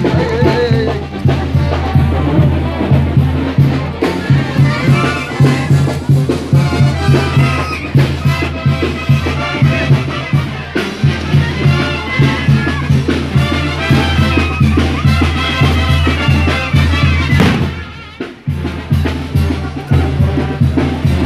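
Band music with brass and drums playing a steady beat, with a heavy bass line; it drops away briefly near the end and comes back.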